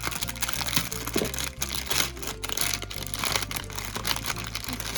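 Packaging crinkling and rustling as it is torn open by hand, over background music with steady held notes.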